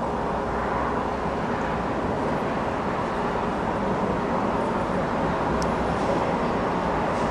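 A loud, steady droning rumble with no breaks or changes, with a faint steady tone running through it; the recordist calls it a strange sound.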